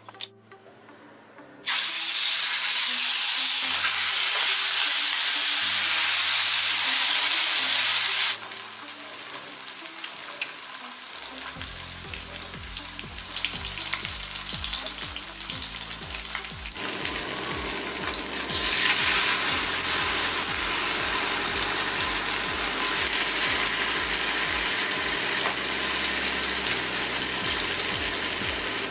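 Mirikali (mrigal carp) fish steaks coated in mustard masala sizzling as they shallow-fry in hot oil in a pan. The sizzle starts about two seconds in and is loudest for the next several seconds. It drops back about a third of the way through, then carries on steadily until the end.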